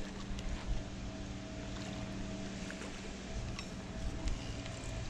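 A steady low mechanical hum, as of a running motor, with a few faint knocks.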